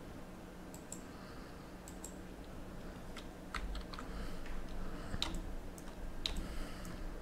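Computer keyboard and mouse clicks: scattered single taps, coming more often in the second half, over a faint steady hum.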